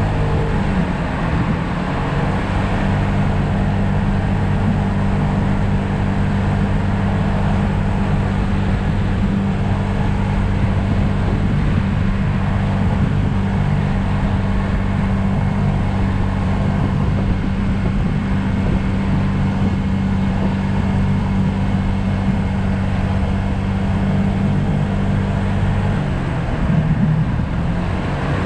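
2020 Yamaha SMax scooter's 155 cc single-cylinder engine running steadily at cruising speed over a constant rush of wind and road noise. The engine note wavers just after the start and shifts briefly near the end.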